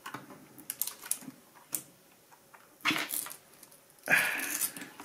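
Knife blade prying and scraping under a glued-on metal logo badge on a keyboard's plastic top case, with scattered small clicks and two louder scrapes about three and four seconds in.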